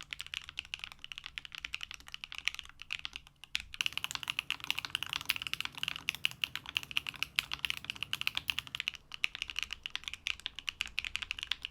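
Typing on an Owlab Hellcat Alice Mech 01 custom mechanical keyboard in a foamless build with an aluminium plate and HMX Caramel switches: a dense run of keystrokes, with a short pause a few seconds in and then faster typing. To the builder it sounds a little dead.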